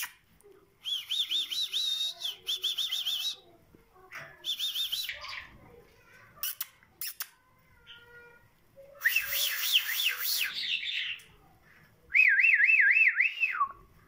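Caged myna whistling in four warbling bursts, each a fast up-and-down wavering trill. The last burst is lower and ends on a falling glide. A couple of sharp clicks come in between.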